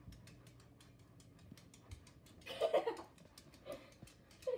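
Light, quick ticking of a small dog's claws on a tile floor, several clicks a second, as the dog steps on its hind legs. About halfway through there is a short vocal sound from a person.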